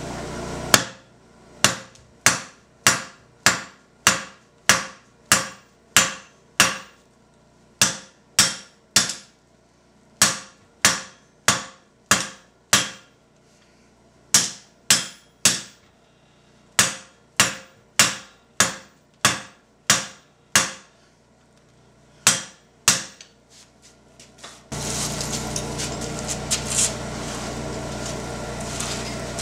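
Hand hammer striking a bar of red-hot steel on an anvil, drawing its end down to a taper for a hook point: sharp ringing blows about two a second, in runs with short pauses, the steel not yet quite at full forging heat. Near the end the blows stop and a steady rushing noise takes over.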